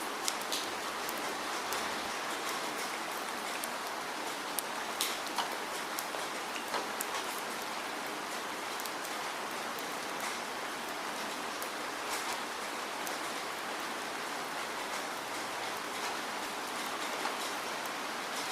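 Steady rain falling, a constant hiss with scattered sharper drop ticks.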